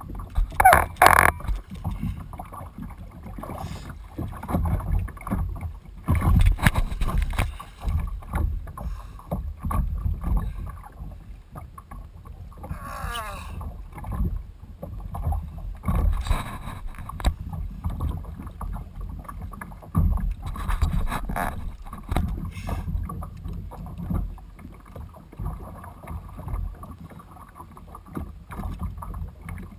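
Water sloshing and slapping against the plastic hull of a Malibu Extreme sit-on-top kayak, over a low rumble, with irregular louder swells; the loudest is a sharp burst about a second in.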